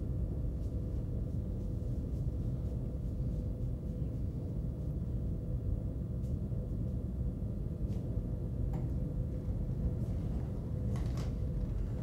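Steady low hum and background noise of the recording, with a faint steady tone above it and a few faint clicks in the last few seconds.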